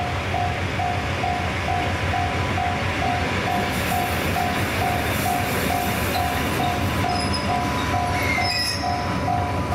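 Railway noise at a station, with a level-crossing warning bell ringing at about three strokes a second throughout. A few brief high squeals come near the end.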